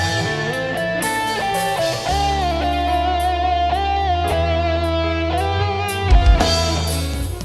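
Live band playing an instrumental intro: a lead melody with long, wavering notes over bass guitar and keyboard. A few heavy drum hits come in about six seconds in.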